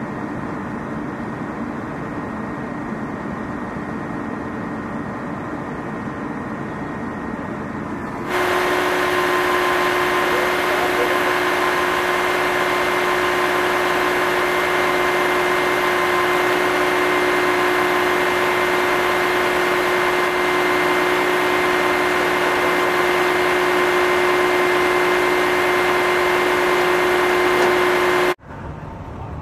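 Steady street background noise, then about eight seconds in a louder flatbed tow truck running, its engine and hydraulics giving a steady drone with a constant whine while it winches a wrecked ambulance up the tilted bed. The sound cuts off suddenly near the end.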